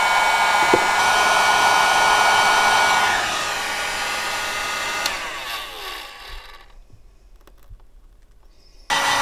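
Electric heat gun blowing with a steady whine, heating the headlight's lens seam to soften it. About three seconds in it is switched off and its fan spins down with a falling whine; after a quieter pause it switches back on abruptly near the end.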